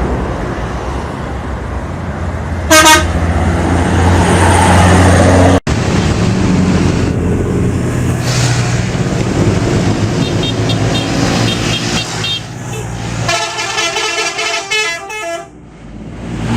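Indonesian bus 'telolet' multi-tone musical horn over a running bus engine: a short loud blast about three seconds in, rapid pulsing horn tones later, and near the end a quick run of changing notes, the telolet melody.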